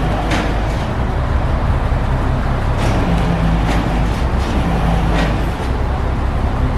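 A heavy engine running steadily with a low rumble, with several short sharp sounds heard over it.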